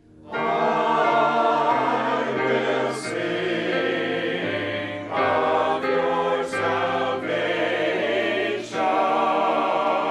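Choral background music: voices holding sustained chords that change every couple of seconds.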